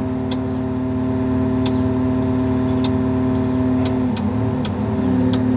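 Crane engine running steadily under a lifting operation. Its pitch dips briefly about four seconds in and then recovers. A few sharp clicks sound over it.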